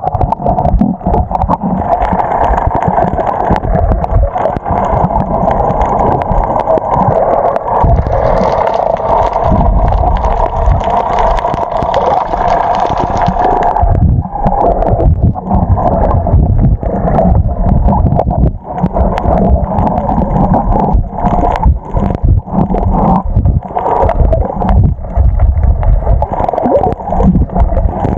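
Muffled underwater water noise picked up by a submerged camera: a steady rushing and gurgling, turning choppier with irregular splashing and sloshing about halfway through as the camera rides near the surface.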